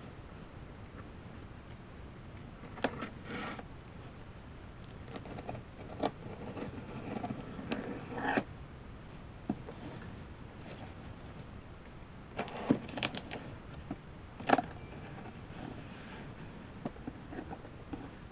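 Cardboard box and packing material being handled and opened: scattered rustles, scrapes and sharp little clicks and knocks, the loudest few about three-quarters of the way through.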